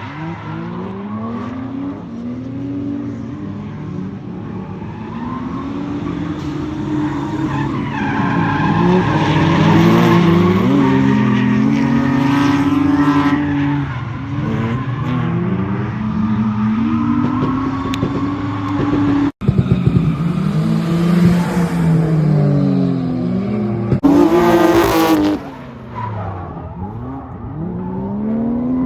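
Turbocharged 1JZ-GTE straight-six of a drifting Lexus SC300, its revs repeatedly climbing and falling with the throttle, over tire squeal and skid noise. A short, loud burst of hiss comes about four seconds from the end.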